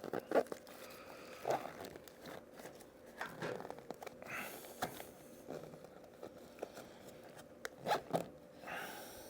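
Medical supplies being worked back into a tight-fitting medical pouch: crinkling packaging and rustling material, with scattered short clicks and knocks.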